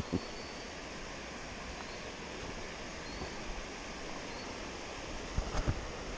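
Steady rush of creek water spilling over a small weir, the stream running high after rain, with a few dull bumps near the end.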